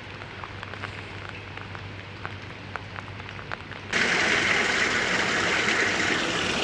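Rain: scattered drops ticking over a low steady hum, then, about four seconds in, a sudden cut to loud, steady heavy rain.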